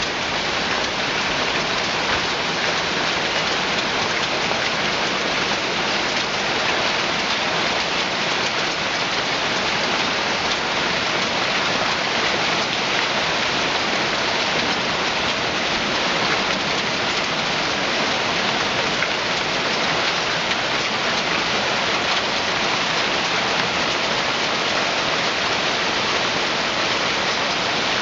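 Hailstorm: hail and heavy rain pelting down together in a dense, steady hiss that does not let up.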